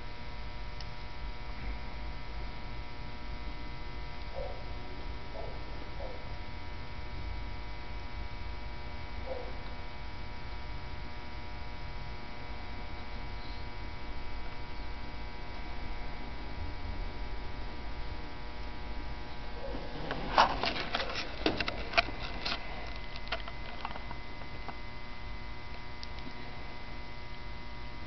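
Steady electrical mains-type hum with many overtones. A few faint short sounds come early on, and a cluster of sharp clicks and rustles falls about twenty seconds in.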